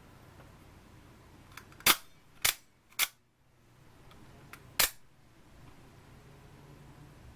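NATO military automatic knife working: four sharp snaps of the spring-driven blade, three about half a second apart and a fourth about two seconds later, two of them with a faint click of the release just before.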